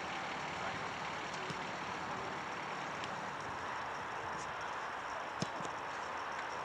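Steady hiss of distant road traffic, with one sharp knock about five and a half seconds in.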